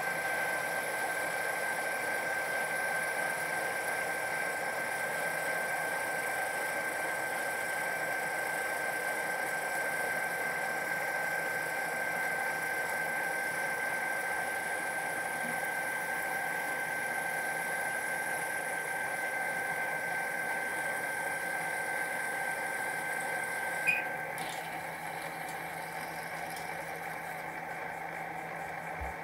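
Metal lathe running while a drill bores into the end of the spinning steel taper workpiece, with a steady high whine. About 24 seconds in a sharp click comes and the whine stops, while the lathe keeps running.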